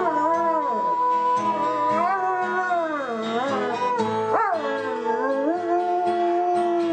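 A dog howling along with music, holding long notes that slide up and down in pitch.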